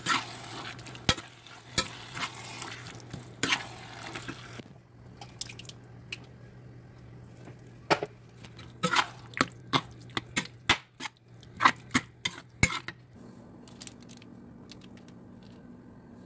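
A slotted metal spatula stirring tomato sauce into ground meat in a skillet: a wet, squelching stir for the first few seconds, then a run of sharp taps and scrapes of the spatula against the pan until a few seconds before the end.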